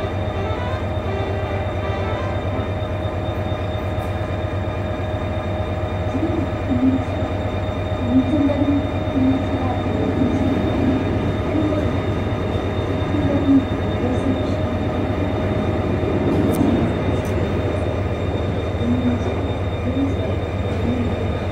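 A stationary train idling, a steady low hum with a constant high whine over it, with irregular rumbles coming and going from about six seconds in.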